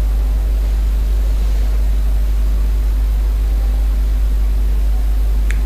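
A steady low hum with an even hiss over it: the recording's own background noise in a pause between spoken instructions.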